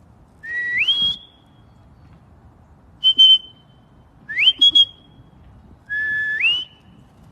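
A person whistling to call a dog: four whistles, three of them a low note that slides up to a higher held note, and one short high note in between.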